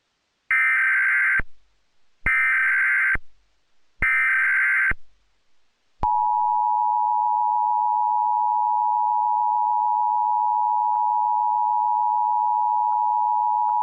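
Emergency Alert System tones: three digital data bursts, each just under a second long, then from about six seconds in the steady two-tone EAS attention signal. This is the header-and-alarm sequence that opens a new emergency alert.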